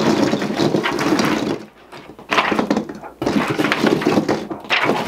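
Christmas ornament balls tipped out of a bag into a cardboard box, clattering against each other and the cardboard, with two short pauses near the middle.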